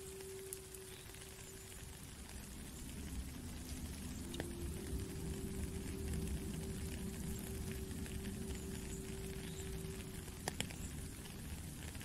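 Steady rain falling on a puddle and wet ground, a dense patter with scattered sharp drops, growing fuller and louder about three seconds in. Long, slowly held notes of an indigenous-style flute sound softly over the rain.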